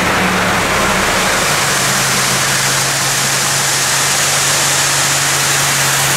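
Tractor engine running steadily while grain pours out of a raised tipping trailer, a loud rushing hiss over the engine's low hum.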